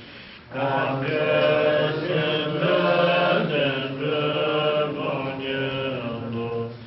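Voices chanting a Tibetan long-life prayer in Tibetan, on a slow melodic recitation, with a short breath pause about half a second in.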